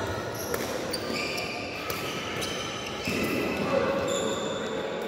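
Badminton play on an indoor court: a few sharp racket strikes on the shuttlecock, and sports shoes squeaking on the court floor in short high chirps.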